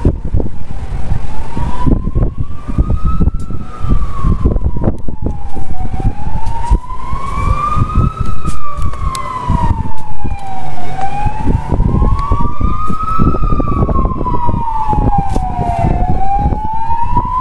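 A siren wailing, its pitch rising and falling slowly in a cycle of about five seconds, over heavy wind buffeting the microphone.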